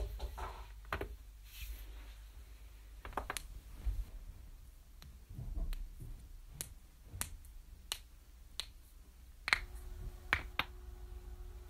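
A person's knuckles and other joints cracking: about a dozen sharp pops, spaced unevenly a fraction of a second to a couple of seconds apart.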